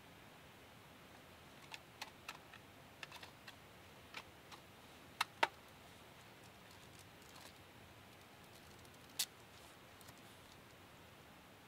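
Scattered, irregular light clicks and ticks over a faint steady hiss, with two sharper clicks close together about five seconds in and another near nine seconds.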